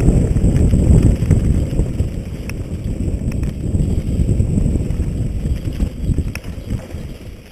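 Wind buffeting a helmet-mounted camera microphone while a mountain bike rolls fast down a rough dirt trail, with scattered sharp clicks and rattles from the bike over the ground. The rush is loudest at first and eases off near the end.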